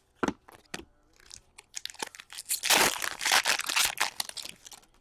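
A foil trading-card pack wrapper being torn open and crinkled: a couple of light ticks, then a dense crinkling and tearing that builds from about two seconds in, is loudest through the middle and fades near the end.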